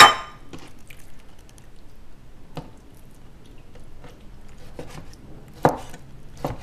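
Raw chicken breast pieces being cut and moved about on a cutting board: soft wet squishing with scattered light knife taps. A sharp knock on the board right at the start is the loudest sound, with another one near the end.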